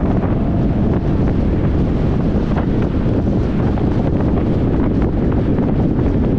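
Wind buffeting the microphone of a hood-mounted camera on a moving vehicle: a steady, loud rumble with no break.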